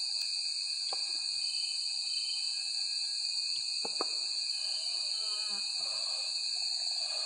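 Steady high-pitched drone of forest insects, with light clicks of a wooden spoon against a metal cup about one second and about four seconds in.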